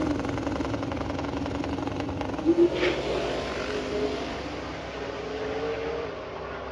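Car and truck engines running, one pitch rising slowly near the end, with two quick louder sounds about two and a half seconds in.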